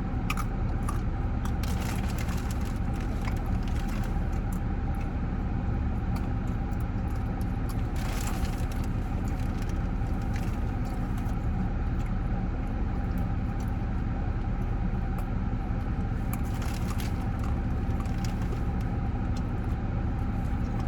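Steady low hum of an idling car engine. Brief handling noises come about eight seconds in and again near seventeen seconds.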